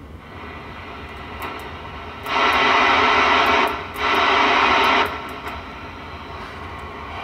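Two bursts of harsh static-like hiss over a low hum, one about a second and a half long and one about a second long, with a few faint clicks, from a CB radio and linear amplifier test setup as the amp is keyed on the bench.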